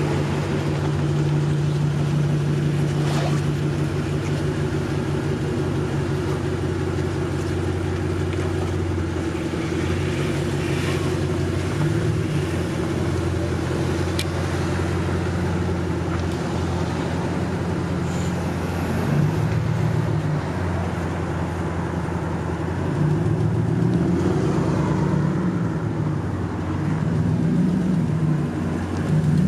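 A motor vehicle engine running close by: a steady low hum whose pitch shifts up and down several times in the second half.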